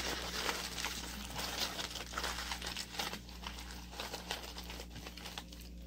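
Aluminium foil crinkling and crackling as it is crumpled and folded by hand, busiest in the first half and thinning out toward the end.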